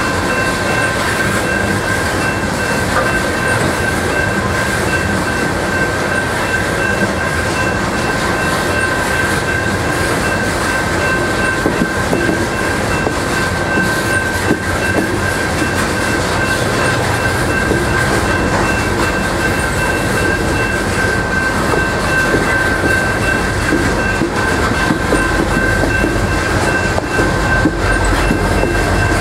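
Aluminum coal hopper cars of a freight train rolling past at steady speed: a continuous rumble and clatter of steel wheels on the rails. A steady high ringing tone sits above the rumble.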